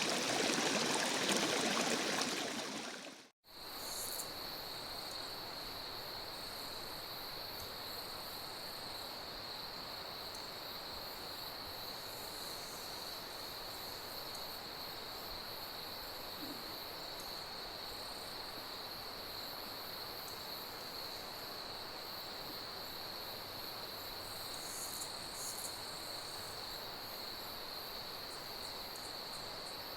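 Running stream water that fades out about three seconds in. After a moment's silence, crickets chirp steadily in a continuous high-pitched trill.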